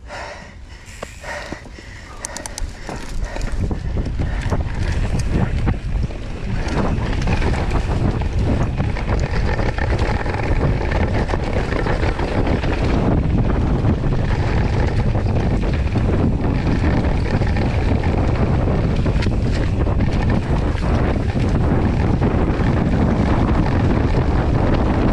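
Wind buffeting the microphone of a camera on a YT Capra mountain bike descending a dirt trail, building over the first few seconds as the bike picks up speed and then holding loud and steady. The tyres roll and the bike rattles over bumps throughout, with a few clicks near the start.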